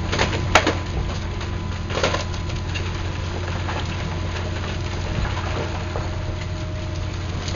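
Hydraulic excavator engine running steadily while its grab tears into a brick building, with sharp cracking and crashing of breaking masonry and timber, loudest about half a second in and again about two seconds in.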